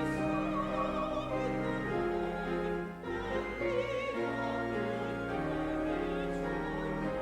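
Music with a singing voice: long held notes with vibrato over instrumental accompaniment, changing pitch every second or two.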